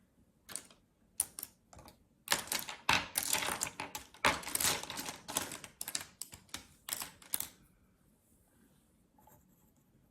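Small hard plastic makeup items being handled: a few separate clicks, then about four seconds of dense clattering and rustling, then a few more clicks.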